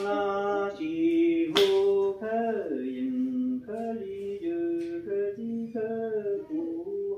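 A voice singing a slow melody of long held notes that step up and down in pitch, with one sharp click about a second and a half in.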